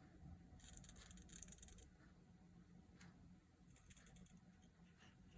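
A loose part rattling inside the DotAio, heard faintly as two bursts of rapid light clicking: a longer one starting about half a second in and a shorter one a little before four seconds in.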